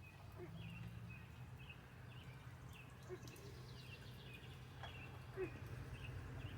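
A small bird chirping over and over, short high notes about every half second, faint over a low steady hum.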